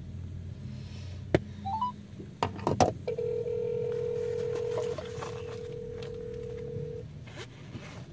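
Phone sounds: a few sharp taps and a short rising three-note chime, then a steady electronic tone held for about four seconds with a brief break in the middle. A low, steady car engine hum runs underneath.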